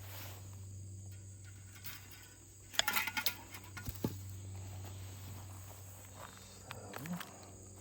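Insects chirping steadily, with a brief burst of clicking and rattling about three seconds in.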